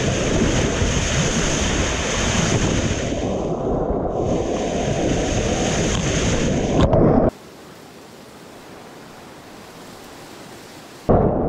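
Water rushing and spraying along the hull of a Corsair F-27 trimaran sailing fast, with wind buffeting the microphone and a sharp splash slap just before the sound cuts off. It drops suddenly to a faint steady hiss for a few seconds, then the loud rush of water comes back near the end.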